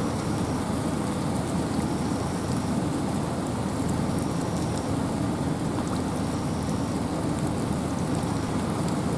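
Steady rain with wind in a forest: an even, unbroken hiss with a low rumble beneath and scattered drop ticks.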